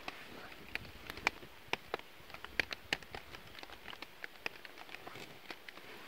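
Scattered sharp ticks and pops at an uneven pace over a faint hiss: rain pattering in a wet forest, and a small smoking kindling fire crackling, while thin sticks are stood around it.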